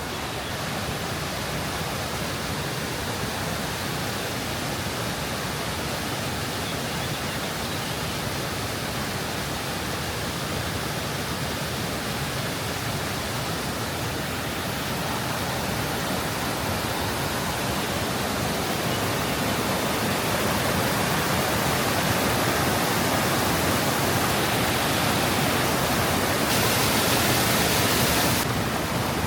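Steady rush of falling water from a river waterfall, growing gradually louder, then dropping suddenly a little shy of the end.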